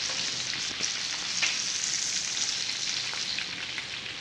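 Fish steaks shallow-frying in hot oil in a pan: a steady sizzle with scattered small pops.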